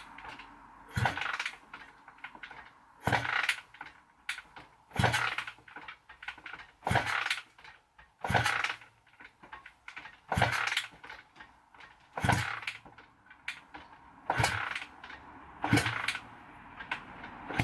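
Honda CB250-based motorcycle engine being kicked over with the kickstart again and again, about once every two seconds. Each kick is a short clattering turn-over, and the engine does not catch and run.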